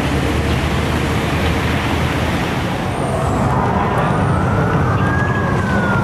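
Heavy storm wind buffeting the microphone as a steady dense roar. About halfway through, a siren wail rises, peaks and then slowly falls.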